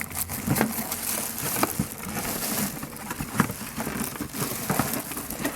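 Styrofoam packing being handled and pulled off a small toaster oven: rustling and scraping, broken by frequent short knocks and clicks.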